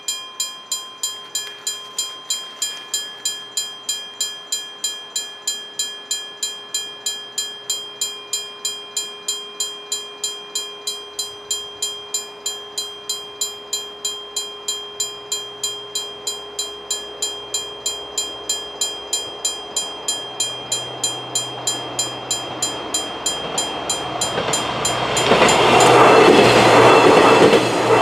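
Level-crossing warning bell ringing steadily in quick, evenly spaced strikes while a VR double-deck passenger train approaches. The train's rumble grows over the last several seconds and it passes across the crossing loudly near the end, wheels clattering over the rails.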